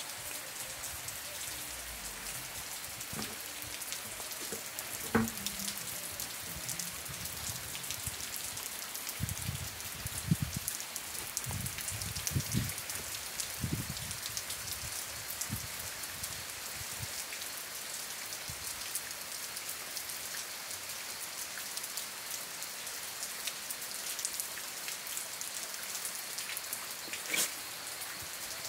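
Steady rain falling, a dense hiss full of small drop ticks. There is a sharp tap about five seconds in, a few low thumps between about nine and fourteen seconds, and another tap near the end.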